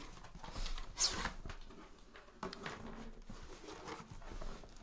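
Handling noises from opening a sealed trading-card case: rustling and light knocks, with one short rasping sound about a second in.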